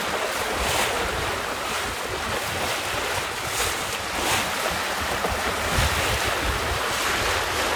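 Steady wind buffeting the microphone over water rushing and splashing past the hull of a small sailboat under way.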